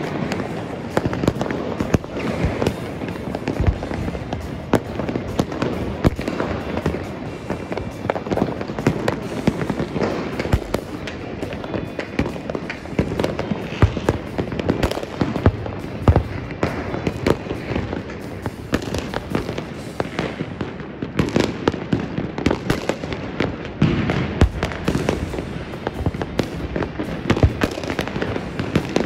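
City-wide fireworks: a dense, unbroken barrage of bangs and crackling from many aerial shells and firecrackers going off at once, near and far.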